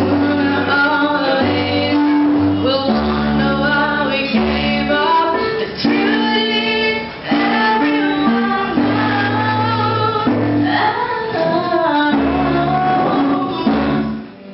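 A woman singing into a microphone and accompanying herself on a Roland RD-300NX stage piano, the voice moving over held low chords.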